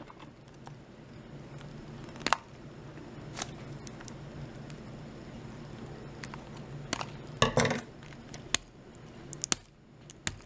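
Scissors snipping and clicking at the plastic tie that holds a tag to a hard plastic toy genie lamp, with plastic handling knocks: scattered sharp clicks and a louder cluster about three quarters of the way through, over a steady low hum.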